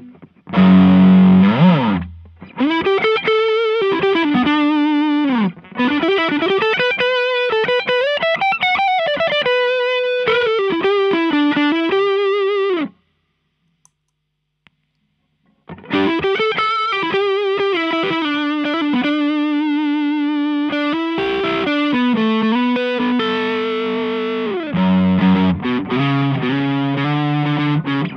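Overdriven electric guitar, a Gibson Les Paul with humbuckers through a Maxon OD808 overdrive pedal into a Fender Blues Deluxe amp, playing a lead phrase of single notes with string bends and vibrato. About halfway it stops for roughly three seconds, with a faint click as the Visual Sound Route 808 pedal is switched on. The phrase then resumes through the Route 808, with several notes ringing together near the end.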